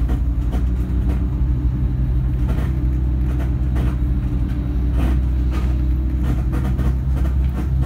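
Steady low rumble of a motor vehicle's engine and running gear heard from inside the cabin, with occasional light knocks and rattles.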